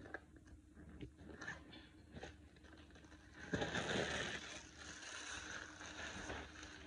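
Rustling and crinkling as a canvas handbag with PVC trim is handled and opened, with a few soft taps at first and louder, steadier rustling from about halfway in.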